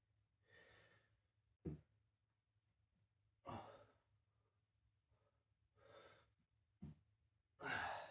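A person breathing hard after exercise: deep breaths and sighing exhales every second or two, with two short sharp puffs, the loudest exhale near the end.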